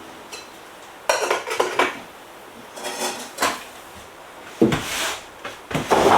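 Dishes and cutlery clinking and clattering as they are handled, in four or so short bouts, some with a brief ring.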